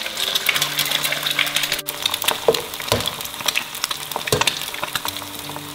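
Eggs frying in hot oil in a wok: a steady sizzle and crackle, with a few sharp knocks as more eggs are cracked in.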